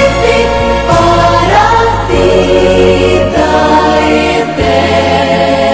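Background choral music: a choir singing held chords over a deep, steady low accompaniment, the chords changing every second or so.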